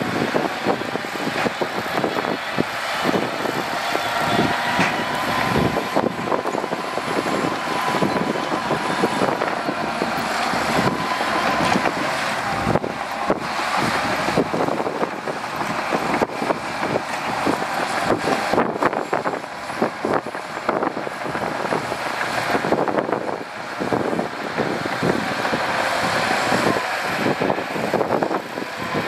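Loaded dump truck's diesel engine running steadily as the truck moves slowly over rough ground.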